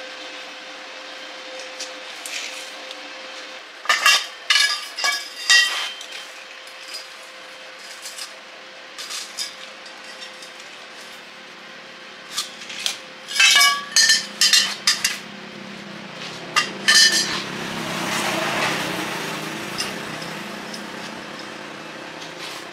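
Metal clinks and taps in short clusters of a few strokes each, each with a brief ring: hand tools on metal parts being worked or handled. A softer swell of noise follows near the end.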